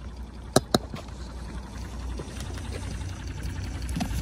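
Sea water lapping and trickling, with two sharp clicks close together a little over half a second in.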